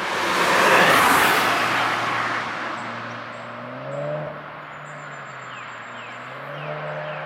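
A car passing at speed, loudest about a second in with a rush of tyre and wind noise, then its engine fading away. A second, smaller rise in engine sound comes about four seconds in.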